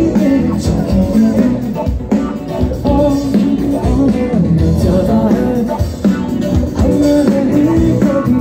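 Live band playing loud amplified rock music over a PA, with a singer, electric guitar and drums keeping a steady beat.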